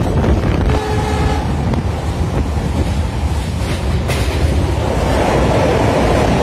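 Passenger train in motion, heard from a seat by an open barred window: a steady loud rumble of wheels on track and rushing air, with a brief steady tone about a second in.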